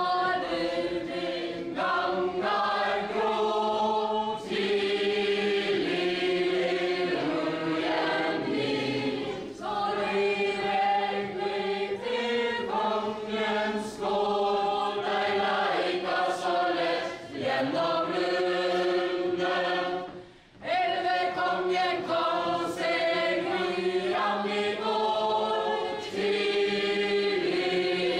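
A mixed group of dancers singing a Norwegian medieval ballad together for a ballad chain dance (stordans), phrase after phrase with short breaks between lines and a brief pause about twenty seconds in.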